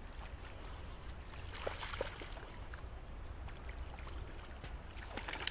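Outdoor river ambience: a steady low wind rumble on the microphone with the wash of moving river water, and a few faint clicks about two seconds in and again near the end.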